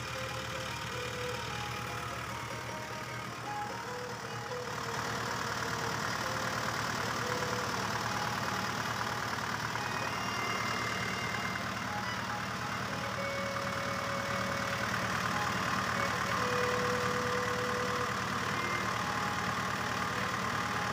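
Mahindra tractor's diesel engine idling steadily with the radiator cap off, a little louder after about five seconds. It is a sign of a leaking head gasket letting compression into the cooling system and pushing water out of the radiator.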